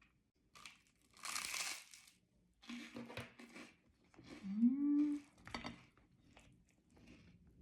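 Close-miked eating on camera: a crinkling rustle lasting about a second, then a short hum and a rising 'mmm' of enjoyment.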